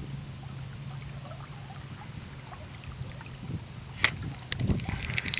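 River water running with wind on the microphone, a steady low rumble with faint ticks. A sharp click comes about four seconds in, then louder, busier water and handling noise.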